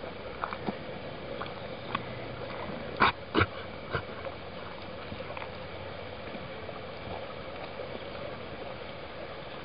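Siberian husky crunching a dog biscuit: lighter chewing clicks, with two loud crunches close together about three seconds in.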